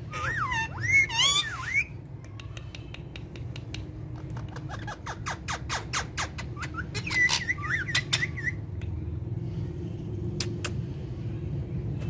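Ringneck parakeets squawking in short, gliding screechy calls in the first two seconds and again around seven to eight seconds in, with a run of sharp clicks between them, over a steady low hum.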